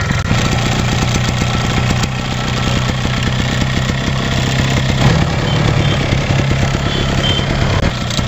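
Yamaha RX100's two-stroke single-cylinder engine running steadily at idle.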